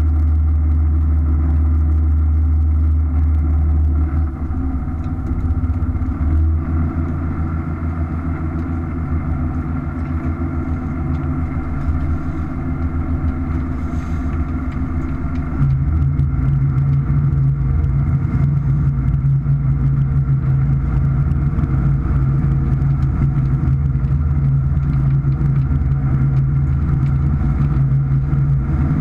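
Fishing boat's engine running steadily underway. The drone drops off about four seconds in, then steps up to a louder, higher drone about sixteen seconds in.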